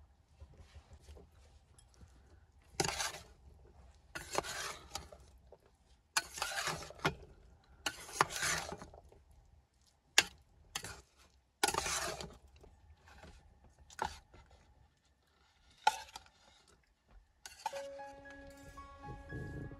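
Spoon stirring and scraping corn kernels in a stainless-steel pot: a string of short, irregular scrapes and clinks, about ten in all. Soft music comes in near the end.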